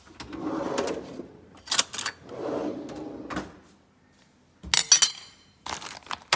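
Kitchen handling sounds: a drawer sliding open and shut, then a metal spoon clattering against stainless-steel bowls, with a sharp ringing clink about five seconds in.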